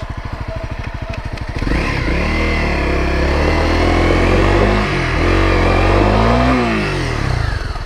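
Honda CRF250L's single-cylinder four-stroke engine idling, then revving up about two seconds in and held at high revs that rise and fall, dipping briefly partway, before dropping back to idle near the end. The bike is getting stuck in sand on a hill climb.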